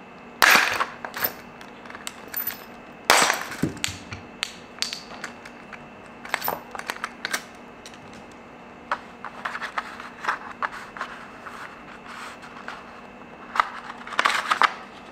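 Pliers and metal hardware clicking and knocking against the hub of a new flat-free hand truck wheel as it is worked on and handled. Two sharp clacks come about half a second and three seconds in, lighter scattered clicks follow, and near the end comes a short burst of rustling and scraping as the wheel is turned in the hands.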